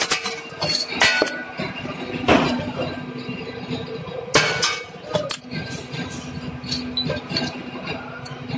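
Punched steel slugs clinking sharply and irregularly as they drop down the chute into a metal bin. Under them runs the steady hum of a two-column hydraulic press.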